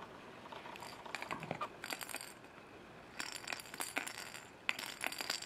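Plastic baby rattle toy being shaken: quick, irregular small clicks and clinks from about three seconds in, with a few faint clicks before that.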